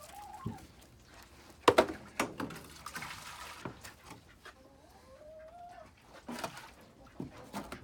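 Hens clucking, with two drawn-out wavering calls near the start and about five seconds in. A few sharp knocks, the loudest about two seconds in.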